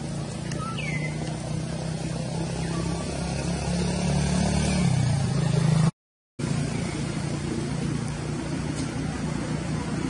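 A motor vehicle engine running at a low, steady note, growing louder over the first six seconds. The sound drops out completely for about half a second just before the six-second mark, then the engine noise carries on.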